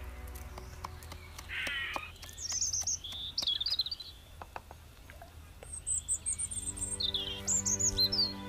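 Birds chirping and calling in short, quick, fluttering phrases, one after another, over soft background music of sustained notes that becomes more prominent in the second half. Faint scattered clicks are heard between the calls.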